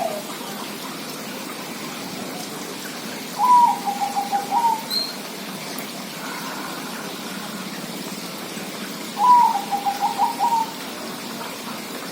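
Zebra dove (perkutut) cooing twice, about six seconds apart; each call is a short rising note followed by a quick run of short, even pulses.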